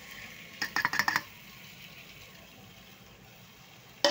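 A steel plate knocking several times in quick succession against the rim of a clay cooking pot as sliced onions, tomatoes and garlic are shaken off it into the pot, about a second in. A single sharp knock follows near the end.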